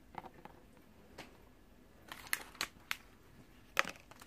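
A few light clicks and taps as small plastic toy pieces are handled and set down on a tabletop, with a sharper tap near the end.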